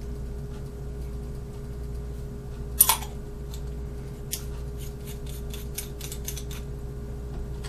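Small metal parts of an aluminium e-cigarette mod handled in the hands: one sharp clink about three seconds in, then a quick run of light clicks and taps.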